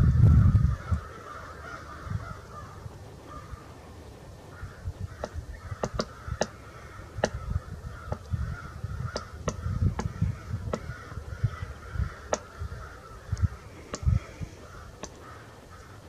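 Black-backed woodpecker giving a dozen or so short sharp ticks at uneven spacing, starting about a third of the way in, over a steady low rumble.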